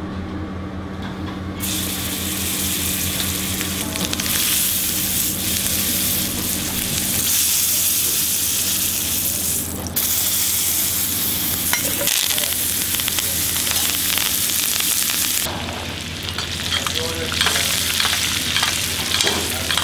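Roasted venison loin sizzling in a pan of hot butter with garlic and thyme as it is turned with tongs. The sizzle starts about two seconds in, dips for a moment near the middle and softens for the last few seconds, with a few light taps near the end.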